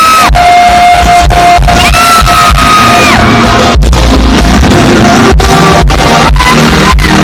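Loud live band music with a singer holding long high notes, each sliding up into the note and falling away at its end.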